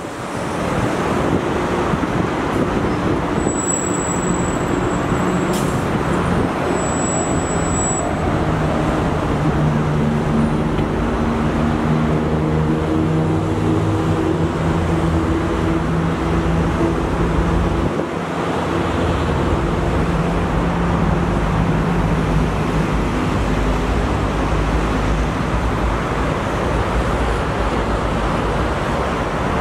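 Alsthom diesel-electric locomotive hauling a train, its engine drone coming in about eight seconds in and fading out after about twenty seconds, over a steady rushing noise of traffic and rolling wheels.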